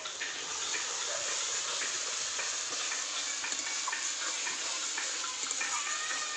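Spice pastes (onion, ginger, green chilli, garlic) sizzling and frying in hot oil in a metal kadai, with a flat metal spatula stirring and scraping against the pan again and again.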